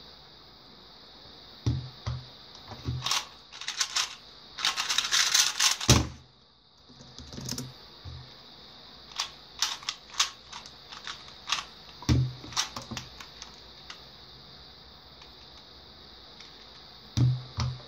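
MF2S 2x2 speed cube being turned fast, a dense run of plastic clicking about four to six seconds in that ends in a thud, with scattered clicks and turns and a few soft knocks before and after.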